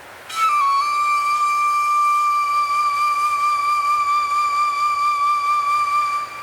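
A single long flute note held for about six seconds, dipping slightly in pitch just after it starts and then steady with a light vibrato, over a faint wind-like hiss.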